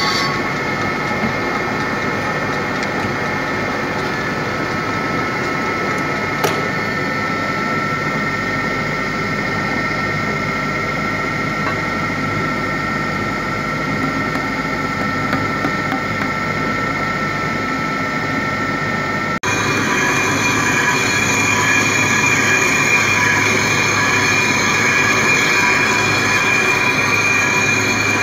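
Machine tool cutting a metal compressor liner: a steady screeching whine from the cutting tool over the machine's running noise. About two-thirds through it changes abruptly to a louder, higher-pitched squeal.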